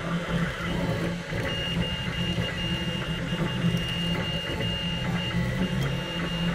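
Printrbot Play 3D printer running a print, its stepper motors giving a steady low buzz. From about a second and a half in, a high whine comes and goes in short pulses as the head moves.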